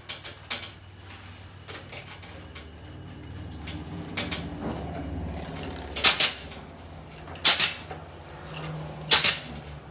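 Kamsin K-SC7C 15-gauge pneumatic C-ring gun firing three times in the second half, about a second and a half apart, each a sharp snap with a short hiss of air as it clamps a C-ring onto chicken wire. Before that, light rustling and clinking of chicken wire being bent by hand, over a low steady hum.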